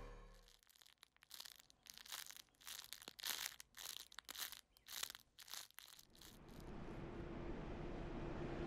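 Thin white plastic crumpled and crinkled in gloved hands, in irregular crackling bursts for about five seconds. Near the end a steady low rumble with a faint hum fades in.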